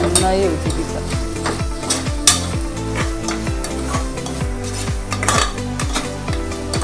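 A spoon stirring and scraping through onions, tomatoes and crushed ginger-garlic frying and sizzling in an aluminium pressure cooker, with a few sharp clinks of the spoon on the pot, the loudest a little over two seconds in.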